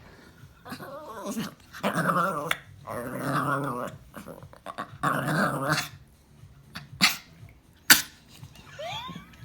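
A dog growling in four drawn-out bursts, then giving two sharp barks and a short rising whine near the end.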